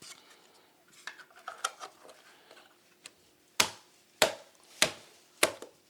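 Office chair parts being handled during assembly: light clicks and rattles, then about halfway through a run of sharp, evenly spaced knocks, four in a row about twice every second and a bit, as a part is knocked into place.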